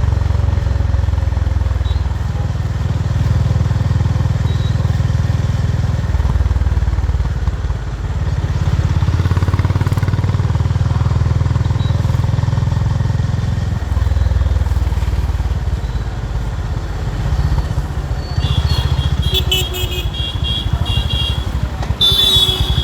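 Honda H'ness CB350's air-cooled single-cylinder engine and exhaust running on the move, a steady low note that shifts in level a few times with throttle. Near the end a high-pitched tone sounds twice over it.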